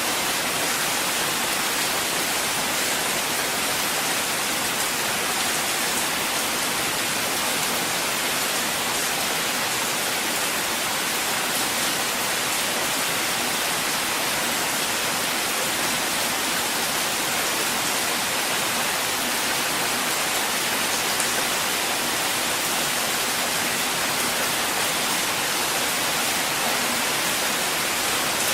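Steady rain falling, an even hiss with no breaks or single loud drops.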